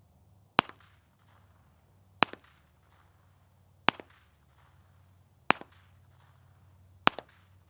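Five unsuppressed shots from a Ruger Mark IV .22 LR pistol, heard from 75 yards, evenly spaced about a second and a half apart, each a sharp crack followed by a brief echo.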